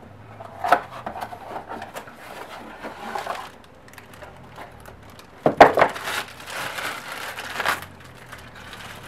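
Cardboard packaging being handled: a small accessory box slid out of its sleeve and opened, with rustling, crinkling and light knocks. A louder clatter of clicks comes about five and a half seconds in, followed by a couple of seconds of steady crinkling.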